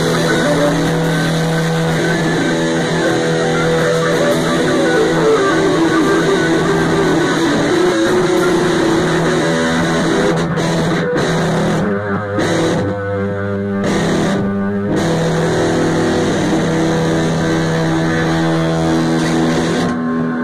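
Two electric guitars playing together in a loose jam, with long held notes.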